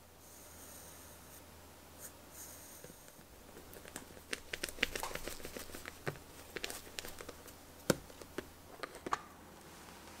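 An eraser rubbing softly over a pencil sketch on paper. Then comes a run of light plastic clicks and knocks as a HIMI gouache paint case is handled and its snap latch opened, with one sharp click about two seconds before the end.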